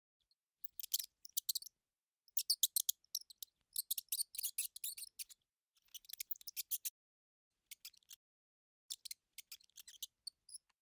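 Mouse sound effects: runs of quick, high, scratchy clicks and squeaks that start and stop in short bursts, with dead silence between them.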